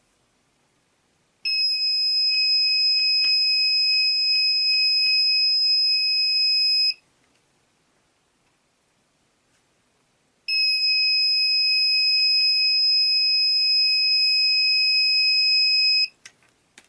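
Electronic buzzer of a small breadboard alarm circuit sounding a steady, high-pitched continuous tone, twice. It switches on about a second and a half in and cuts off after about five and a half seconds, then sounds again for about five and a half seconds from about ten seconds in. A few faint clicks come near the end.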